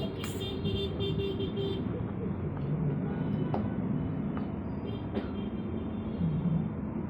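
Steady road-traffic rumble, with a horn-like tone during the first two seconds and a few faint clicks.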